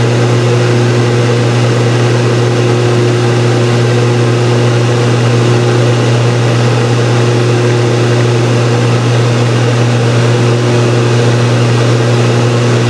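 Loud, steady cabin drone of an EADS CASA C-295W's Pratt & Whitney PW127G turboprop engines and propellers at climb power after takeoff. It is a deep, even hum with a few steady higher tones over a rushing noise, and it does not change.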